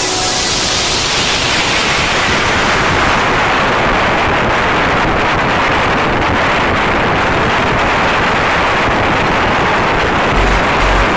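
Wind rushing over a phone's microphone, with road noise from a vehicle travelling at speed: a steady loud hiss, with heavier low buffeting near the end.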